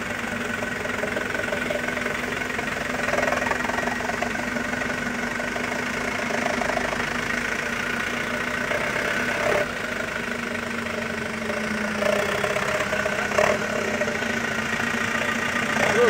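Heavy diesel engine running steadily, with two short sharp knocks, at about ten and thirteen seconds in.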